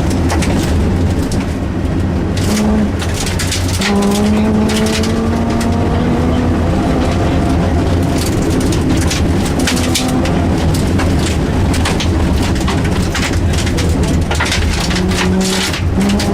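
Rally car engine running hard on a stage, its pitch climbing as it accelerates from about four seconds in, with many short clicks and knocks throughout.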